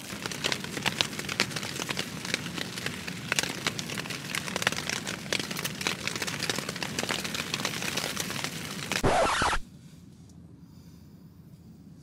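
Rain pattering hard on the tent, a dense patter of many sharp drop ticks. About nine seconds in, a short loud rush, then the sound cuts to a much quieter steady hush.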